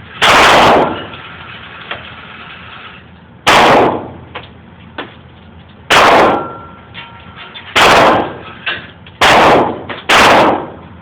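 Six gunshots from a .45 ACP Taurus Millennium Pro semi-automatic pistol, each a sharp crack with a short ringing tail. The shots come closer together as the string goes on, and there are a few faint clicks between them.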